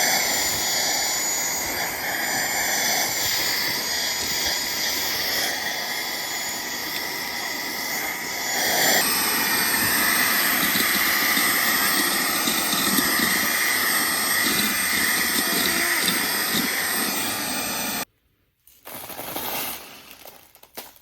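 Mr.ego handheld cordless car vacuum running steadily with a high motor whine. Its tone shifts and it grows a little louder about nine seconds in. It switches off suddenly about three seconds before the end, followed by a brief noise.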